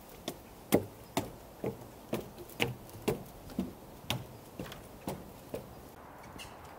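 Footsteps of a person walking at a steady pace, about two steps a second, with a crisp crunch on each step. The steps stop near the end.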